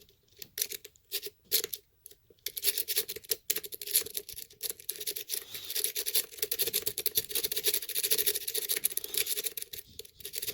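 A homemade rake pick scrubbed rapidly in and out of a Yale pin-tumbler lock fitted with security pins: quick metallic scratching and clicking of the pick against the pins, a few separate clicks at first, then a dense unbroken run from about two seconds in. The raking does not open the lock.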